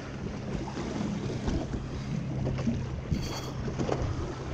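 Boat engine running steadily in a low hum, under wind buffeting the microphone and the rustle of a sweatshirt sleeve brushing the camera.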